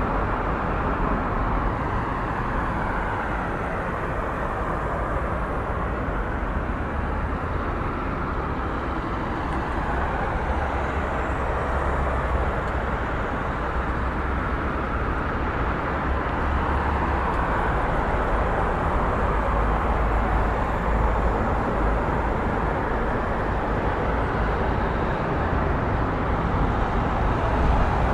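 Busy street ambience: a steady wash of traffic noise with a deep low rumble, swelling and easing slowly as vehicles pass.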